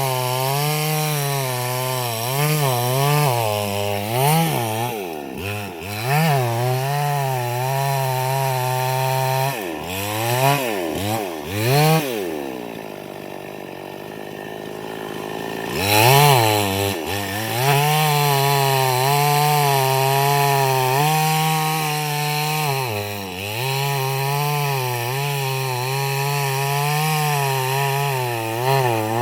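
Chainsaw engine running as it cuts wood, its pitch wavering up and down under load. About halfway through it drops back to idle for a few seconds, then is revved up again and keeps cutting.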